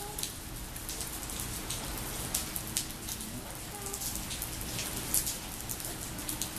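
Rain falling steadily, with many close drops striking at irregular moments as sharp ticks.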